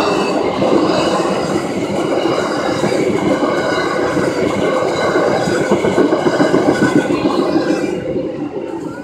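Amtrak passenger train cars rolling past at close range, wheels on the rails making a loud, steady rumble with several high steady tones over it. The sound falls away about eight seconds in as the last car clears the crossing.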